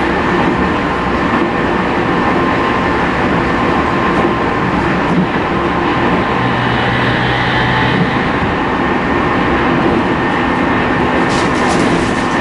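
Loud running noise inside a Tokyu 5000 series motor car, DeHa 5611, a car with an IGBT inverter: a rumble of wheels on rail under steady whining tones from the inverter and traction motors. A few sharp clicks come near the end.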